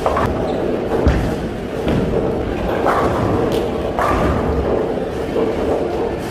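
Bowling alley din: heavy bowling balls thudding onto the lanes and rolling, and pins clattering, over a steady background hum of the hall. Several sharp knocks stand out, the loudest about a second in.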